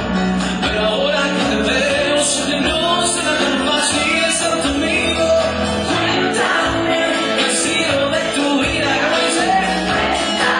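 A man singing a ballad live to his own strummed acoustic guitar, with rhythmic strokes running through it.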